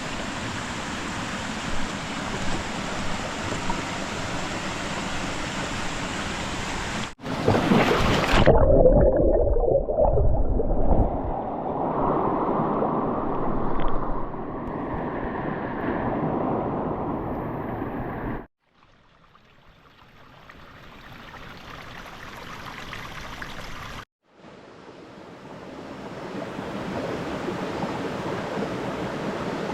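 Running water, a steady rushing noise, heard in several cut-together shots that change about 7, 18 and 24 seconds in. It is loudest and deepest about 7 to 11 seconds in and quieter between about 18 and 24 seconds.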